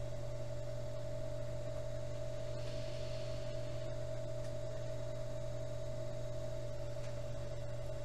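Electric potter's wheel motor running at a steady speed, a constant hum with a steady whine on top, while the clay cylinder spins.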